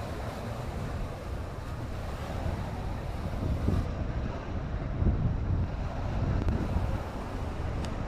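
Wind buffeting the microphone in irregular low rumbling gusts, over a steady hiss of open-air seaside wind.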